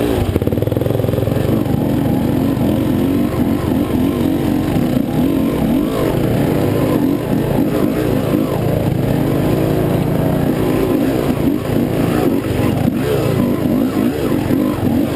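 Dirt bike engine revving up and down over and over, its pitch rising and falling every second or two as the bike climbs a rough trail, heard close up from the moving bike.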